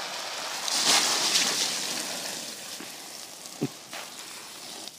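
Garden hose spray hissing onto a wet plastic slip-and-slide, with a louder splashing whoosh about a second in that fades over a second or so as a boy slides head-first down it.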